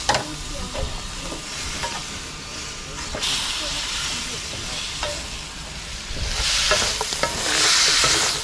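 Chicken pieces sizzling as they are stir-fried in hot oil with soy sauce and cooking wine, with occasional clicks of the spatula against the pan. The sizzling grows louder about six seconds in.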